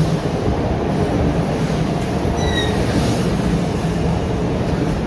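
Sanyo Shinkansen 500 series train departing, its wheels and motors giving a steady rumble with a low hum. A brief, faint high squeal comes about halfway through.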